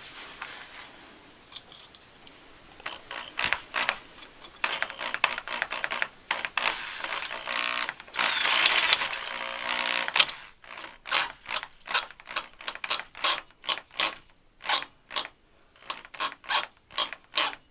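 Electric drill boring into a broken bolt stuck in a diesel cylinder head, run in uneven bursts of grinding. Past the middle it turns into a quick series of short rasping strokes, about two a second.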